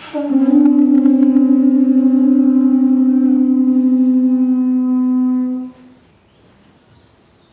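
Several pū (Hawaiian conch shell trumpets) blown together in one long held note lasting about five and a half seconds, then stopping abruptly. The call announces the start of a ceremony.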